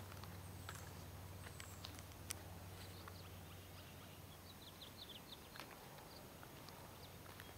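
Quiet outdoor ambience: small birds chirping now and then, with a quick run of chirps about five seconds in, a few light clicks and footsteps, and a faint low hum that fades out about halfway through.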